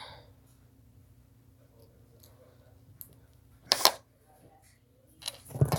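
Handling noise close to the microphone: a faint click, then a sharp clack just under four seconds in, then a cluster of knocks and low bumps near the end, over a faint steady hum.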